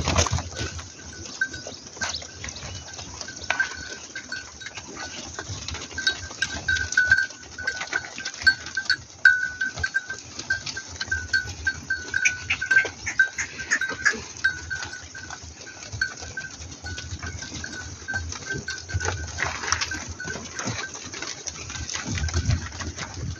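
A mixed herd of sheep and goats on the move, bleating, with the patter of many hooves on a gravel track.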